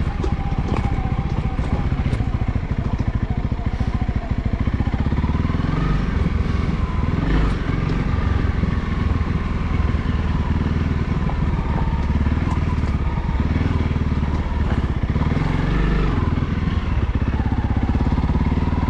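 Honda CRF300L's single-cylinder four-stroke engine running steadily on a trail ride, its note rising and falling twice with the throttle.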